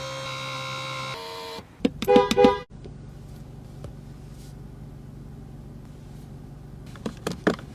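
Electronic chime tones and a quick run of beeps, as from a Range Rover SV's cabin warning and start-up signals. After a sudden cut, a low steady hum follows, with a few clicks near the end.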